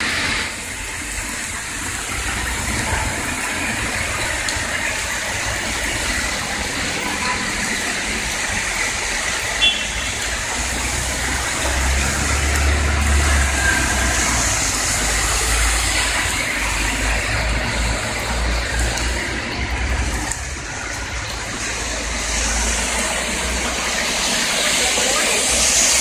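Heavy rain on a city street, with traffic hissing past through the wet road: a steady rush of rain and tyre spray, with low rumbles as vehicles pass and one sharp click about ten seconds in.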